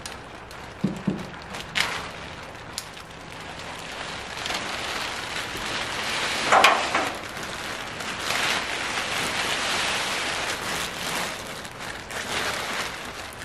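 A sheet of house wrap rustling and crinkling as it is unrolled and worked up the wall, building to a loud crackle about six and a half seconds in. There are a couple of low knocks about a second in.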